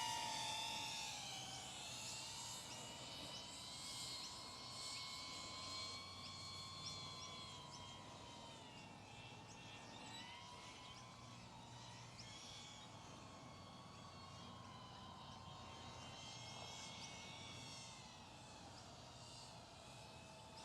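iFlight ProTek35HD cinewhoop FPV drone's motors and ducted propellers whining in flight, the pitch rising and falling with the throttle, fading slightly as it moves away.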